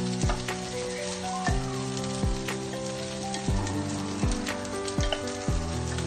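Day-old rice frying in a pan with margarine and garlic, sizzling as it is tipped in and worked with a wooden spatula. Background music with a steady beat and held notes plays over it.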